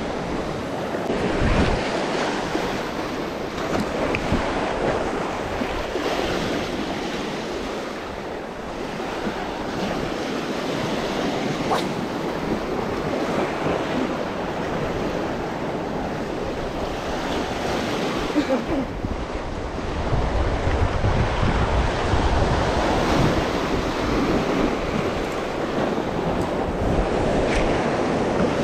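Sea surf washing and breaking over shoreline rocks, swelling and easing, with wind buffeting the microphone. The rumble grows heavier in the last third.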